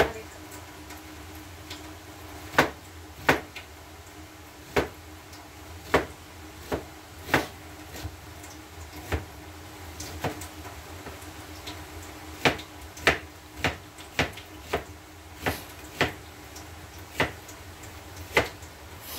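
Kitchen knife chopping vegetables on a cutting board: slow, separate sharp knocks, irregularly spaced about a second apart, over a steady low hum.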